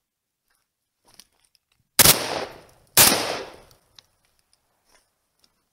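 Two shotgun shots about a second apart, each loud and sharp with a long fading echo.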